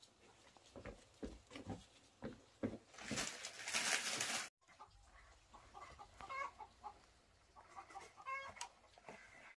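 A few light knocks, then a loud rushing hiss for about a second and a half that cuts off abruptly. After it, chickens cluck in short pitched calls.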